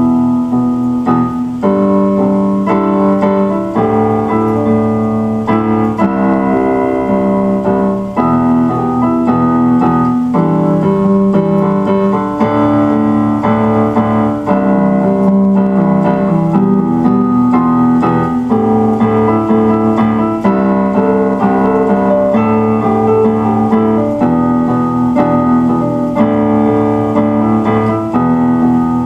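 Instrumental piano music: held chords and a melody line, changing every second or two and continuing steadily throughout.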